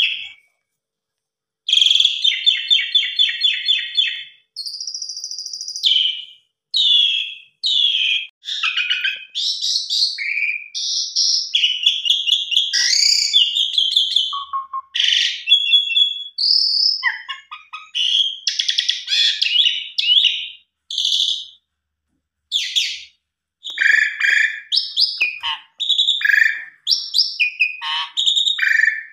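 An Asian pied starling (jalak suren) singing a long, varied song of whistles, chirps and rattling trills, rich in mimicked phrases, broken by a couple of short pauses.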